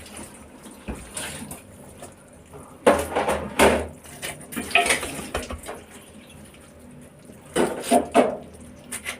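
Kitchen utensils and dishes clinking and knocking, a few separate clatters, loudest about three seconds in and again near the end.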